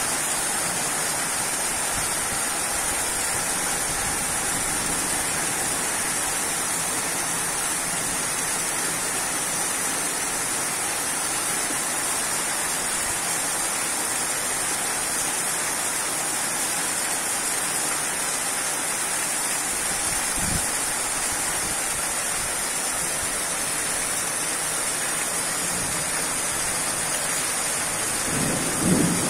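Heavy rain falling steadily in a thunderstorm: an even, unbroken hiss of rain on roofs and pavement. There is a single brief low thump about twenty seconds in.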